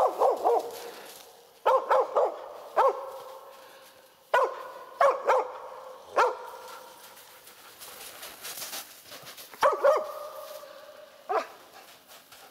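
Hunting laika barking at a pine marten treed in a birch: short barks singly or in quick runs of two to four, each with a brief ringing tail, and a pause of a few seconds midway. This is the laika's bark at treed game, holding the marten and calling the hunter.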